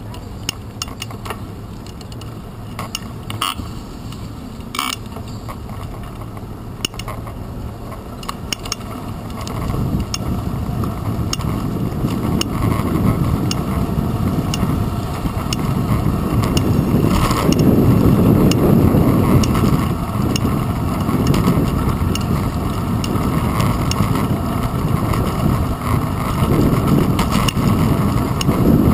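Riding noise of a bicycle heard through a handlebar-mounted GoPro Hero 2: a steady low rumble with some rattling and sharp clicks in the first several seconds. About ten seconds in, the rumble of road and wind on the microphone grows clearly louder.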